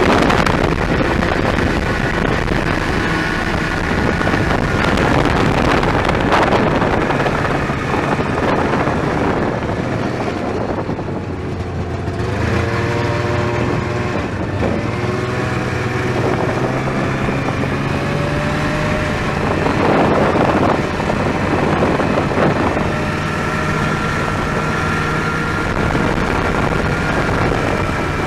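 Arctic Cat Jag snowmobile's two-stroke engine running while riding, its pitch rising and falling with the throttle. Wind buffets the microphone.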